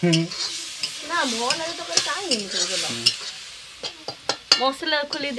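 A metal ladle stirring and scraping food that is frying in a metal wok, over a steady sizzle. The scraping strokes squeak in rising and falling pitches, and the ladle clicks sharply against the pan several times in the second half.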